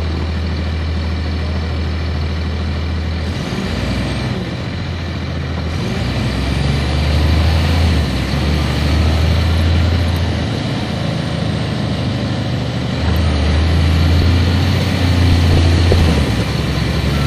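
Cummins ISC diesel engine of a 1999 Nova Bus RTS heard from inside at the back of the bus: idling steadily, then pulling away about three seconds in. The engine note builds twice, with a high whine that climbs each time as the bus accelerates.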